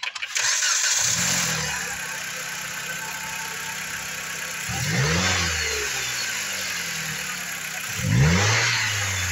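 Four-cylinder engine of a high-mileage (192,376-mile) 2014 Jeep Compass starting up and settling into a steady idle. It is revved briefly twice, about five seconds in and again near the end.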